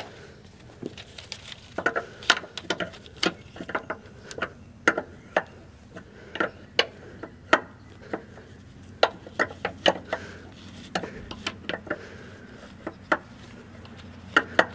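Combination wrench clicking and knocking against the air fitting on top of a semi truck suspension air bag as the fitting is worked tight in short strokes: sharp, irregular metal clicks, roughly two a second.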